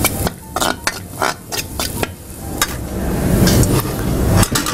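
A spoon stirring and scraping dry roasted gram flour (besan) in a brass kadai, with a quick run of scrapes and clicks against the pan in the first two seconds, then a couple of clicks near the end.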